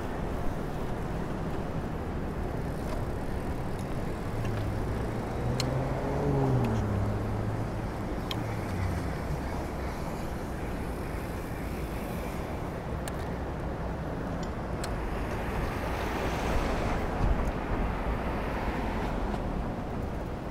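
City street traffic heard from a moving bicycle: a steady rush of road noise, with one motor vehicle's engine hum rising then falling in pitch as it passes, about five to nine seconds in.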